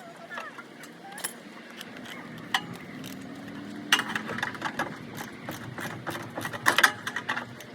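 Hand tools working on the car's suspension: rapid ratchet-like clicking and sharp metal clinks, in quick runs about four seconds in and loudest near the end.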